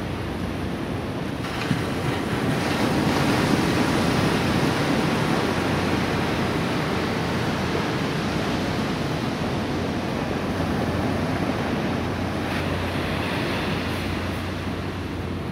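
Low surf washing onto a sandy beach, a steady rushing noise that swells a couple of seconds in, with wind on the microphone.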